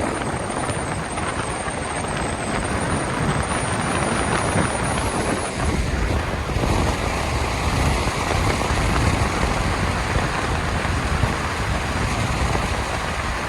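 Steady road noise of a moving vehicle, heavier in the low rumble from about six seconds in.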